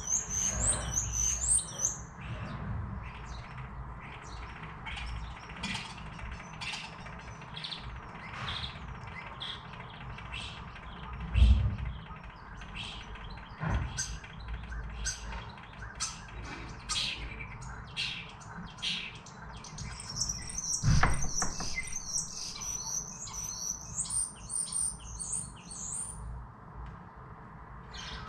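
Small birds perched on a pipe on the outside wall chirping and twittering, with a burst of rapid high twittering at the start and another about twenty seconds in. A couple of low thumps, the loudest sounds, come around the middle.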